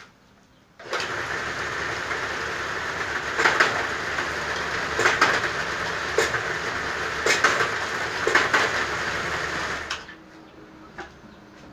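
A bamboo strip is pulled through a satay-skewer machine's feed rollers and forced through a four-hole cutting blade, splitting into four skewers. A loud, steady scraping starts about a second in, with sharp cracks roughly once a second, and stops near the end.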